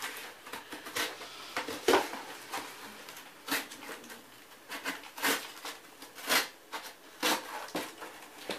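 Craft knife slicing through corrugated cardboard: a run of irregular short rasping strokes, with the cardboard rustling and flexing as it is held and turned.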